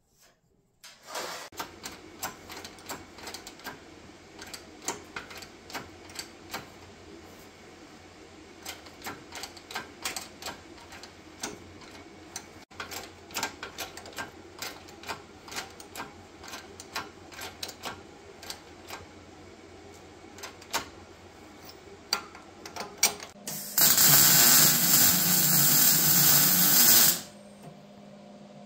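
Metal fabrication in a shop: a long run of irregular clicks and metal taps over a steady low hum as a steel plate is worked and bent in a press brake. Near the end comes a loud rushing burst lasting about three and a half seconds, then a steady motor hum.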